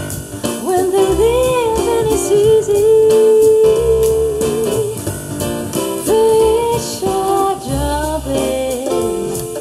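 Blues recording playing through a Jamo BX 150 three-way loudspeaker: an instrumental passage with a lead guitar line of long, bending held notes over a low bass.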